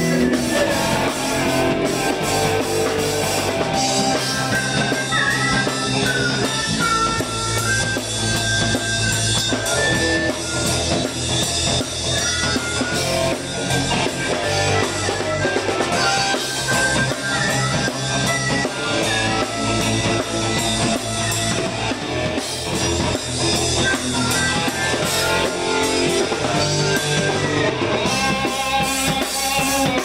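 Rock band playing: electric guitar over a drum kit, with a high melodic line that bends in pitch above the steady beat.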